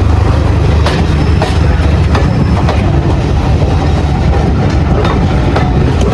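A train running along the track, its wheels clicking over the rail joints every second or so above a steady low engine rumble.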